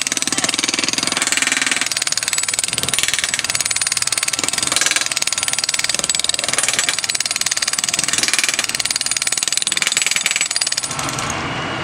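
Hose-fed hand-held railroad track tool hammering rapidly and continuously at the rail and ties, stopping abruptly near the end.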